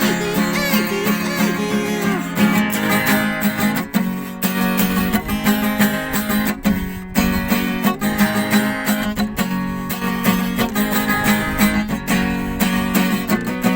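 Acoustic guitar strummed hard at a fast tempo, about 170 beats a minute. A man's falsetto singing voice is over it in the first few seconds.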